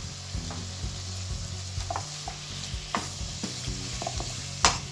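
Cubes of filet mignon sizzling in a hot frying pan with soy sauce just added, as a spatula stirs them. A few sharp knocks of the spatula against the pan, the loudest near the end.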